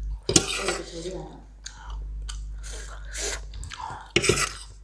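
Close-miked chewing of ramen noodles, in several short noisy bursts of mouth sounds.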